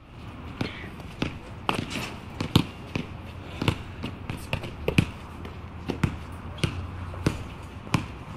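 Basketballs bouncing on a gym floor in a binaural recording. Sharp bounces come about every two-thirds of a second, with other bounces in between, over the steady background noise of the hall.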